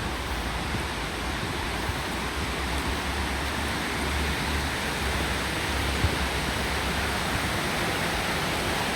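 Steady rush of falling and flowing water from a rainforest waterfall and its creek, an even hiss without breaks.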